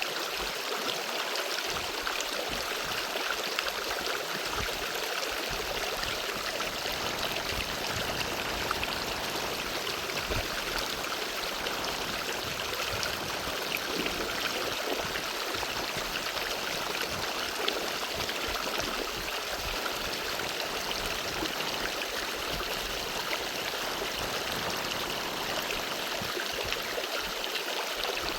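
Water flowing steadily in a stream, a continuous rushing and trickling.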